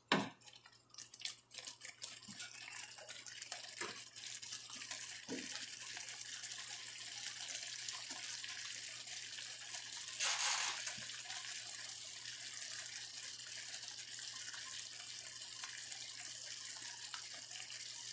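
Thick tomato sauce simmering in a wide pan, a steady bubbling hiss that builds over the first few seconds and swells briefly about ten seconds in. A few light knocks come near the start.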